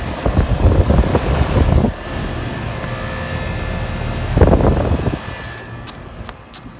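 Outdoor air-conditioner condenser unit running with a steady low hum. Two bursts of loud rumbling noise cover it, one in the first two seconds and a shorter one about four and a half seconds in. It fades lower near the end, with a few light clicks.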